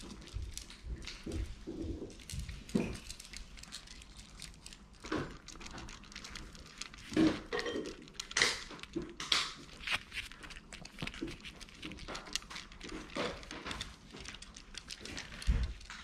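Small dogs eating dry kibble from a plastic feeding plate on the floor: irregular crunching and clicking of kibble and plate, with the loudest clicks in the middle.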